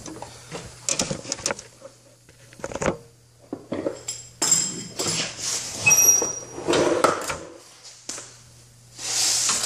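Scattered metal clinks and knocks from hand tools being handled and tapped at a rear wheel hub, a few of them ringing briefly, busiest past the middle. A short rustle near the end.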